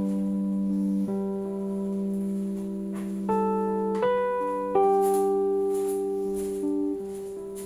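Background music: slow plucked-guitar notes, each left to ring, changing about once a second over a held low note.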